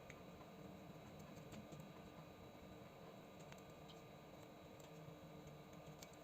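Near silence with a few faint, scattered small clicks and ticks over a low steady hum.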